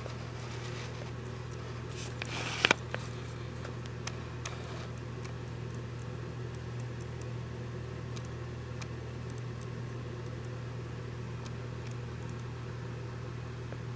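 Steady low hum of a fan or household appliance, with a few faint clicks and one sharper knock about two and a half seconds in.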